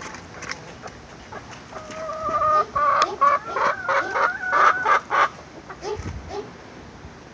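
Chickens calling: a held call about two seconds in, then a loud run of quick clucking calls lasting about two and a half seconds.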